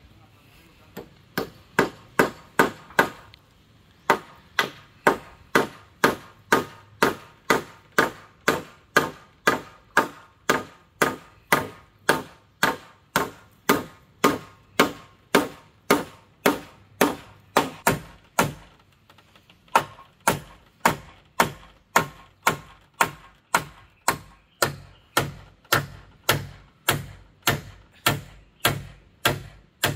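A hammer steadily driving nails into a wooden top piece set on a notched post, about two blows a second, with brief pauses about 3.5 s in and again about 19 s in.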